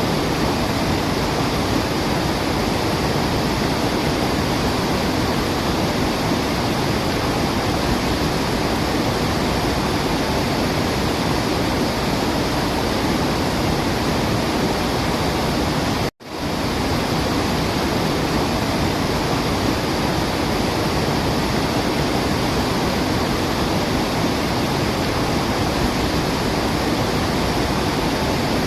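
A waterfall rushing steadily, a dense unbroken noise of falling water. It cuts out for a split second about sixteen seconds in and comes straight back, like a loop seam.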